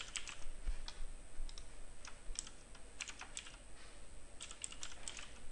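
Computer keyboard being typed on: quiet, irregular keystrokes as a short word or two is typed.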